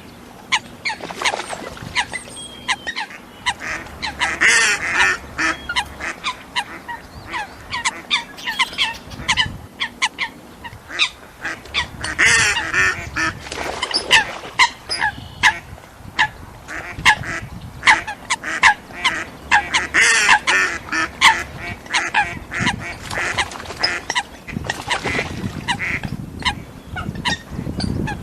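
A female mallard and another waterfowl calling: a long string of short quacking and honking calls, with denser bursts of calling about four, twelve and twenty seconds in.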